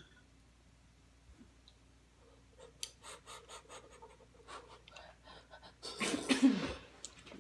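Eating sounds: faint clicks of a spoon and mouth, then about six seconds in a loud, breathy slurp of hot soup from a spoon, lasting under a second.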